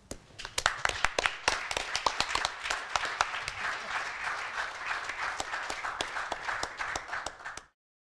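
Audience applauding at the close of a talk: scattered claps that quickly thicken into steady clapping, then cut off abruptly near the end.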